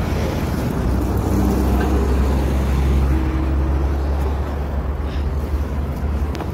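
Road traffic on a city street: a steady low rumble of passing engines, with a faint engine hum in the middle.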